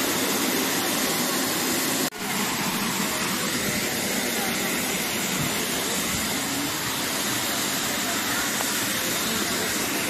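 Steady rush of waterfall water, a dense even noise, with a brief dropout about two seconds in.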